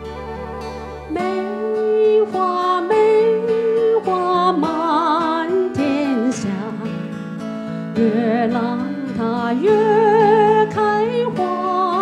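A woman singing a slow Mandarin ballad into a microphone, holding long notes with a wide vibrato, over recorded backing music with guitar. The voice comes in about a second in, over the accompaniment's sustained chords.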